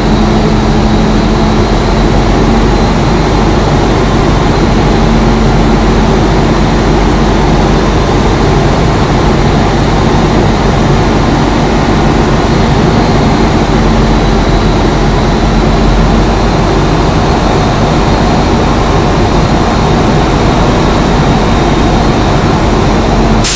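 International truck's diesel engine running steadily, its air compressor loaded and building air-brake pressure toward governor cut-out; a loud, unchanging hum with a steady low tone.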